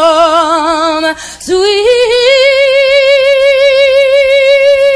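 Solo female voice singing a cappella with wide vibrato: it holds the last word of a line, breaks for a breath about a second in, then slides up into a long, high held note.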